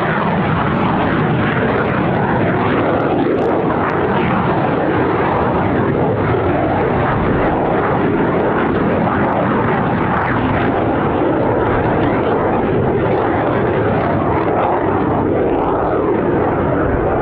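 Aircraft engine noise: a loud, steady rush that holds at one level, with no rise or fall.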